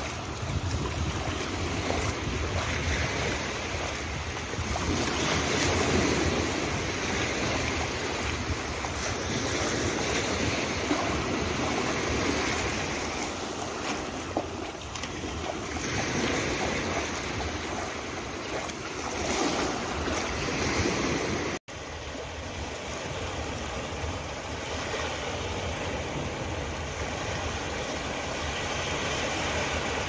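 Small waves washing up a black-sand beach and swirling around bare feet in the shallows, swelling and easing every few seconds. After an abrupt break about two-thirds of the way through, a steadier wash of surf.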